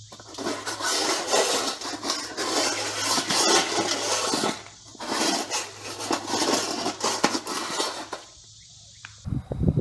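Dog crunching dry kibble from a stainless steel bowl: a dense run of crunching and rattling, with a short pause about halfway and a stop near the end.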